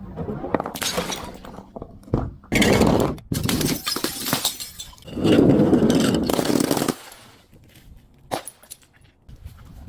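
Brittle, crunchy objects being crushed, giving dense crackling and breaking sounds. The crunching comes in two loud spells, a short one about two and a half seconds in and a longer one about five seconds in, then thins to a few scattered sharp cracks.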